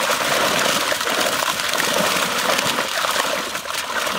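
Water splashing and churning as a crowded catch of big fish thrashes inside a drawn-in seine net, a little quieter near the end.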